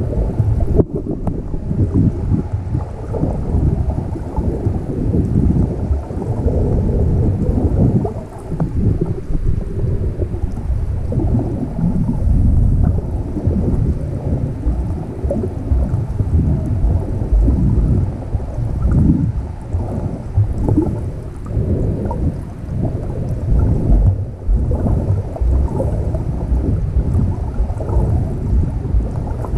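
Water sloshing and splashing around a GoPro action camera, heard as a muffled, rising and falling rumble.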